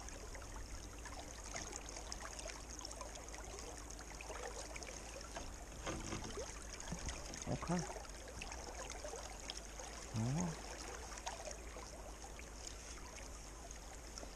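Creek water running steadily over rocks, with a few faint short sounds and a brief muffled sound about ten seconds in.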